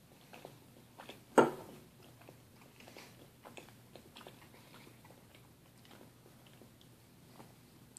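Someone chewing food at the table: faint, irregular mouth clicks. One sharp knock about a second and a half in is the loudest sound.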